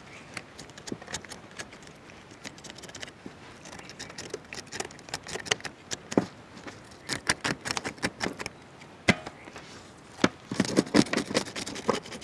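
Knife scraping the scales off pearl spot fish (karimeen): quick rasping strokes and small clicks in irregular runs, the blade ticking against the tray, busiest and loudest near the end.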